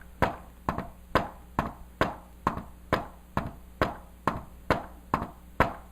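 Knocking on a hard surface in a steady rhythm of about two knocks a second, tapped out to imitate the S4 gallop heart rhythm.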